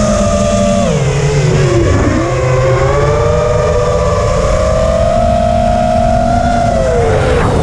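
FPV quadcopter's brushless motors whining, several close pitches together. The pitch sags about a second in, then rises again, and dips once more near the end.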